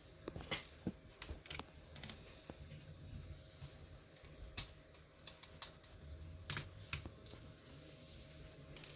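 Faint, irregular clicks and light taps of a screwdriver, tiny screws and a small laptop part being handled as the part is unscrewed and lifted out.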